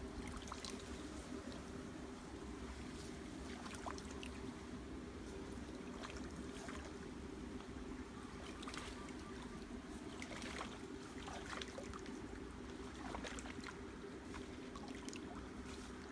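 Water trickling and swishing around the legs of a person wading slowly through a shallow stream, with scattered small splashes and clicks, over a steady low hum.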